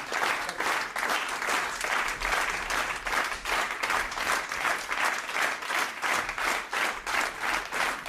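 A live theatre audience applauding.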